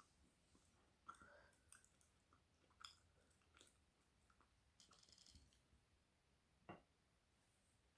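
Faint chewing of spiced flatbread, with soft mouth clicks at scattered moments and the sharpest click near the end.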